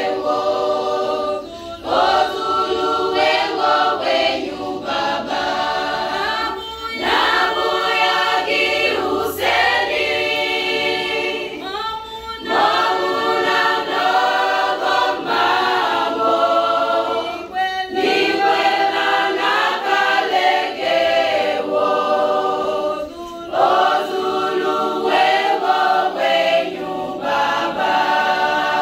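Women's choir singing a praise song a cappella, with brief breaks between phrases every five or six seconds.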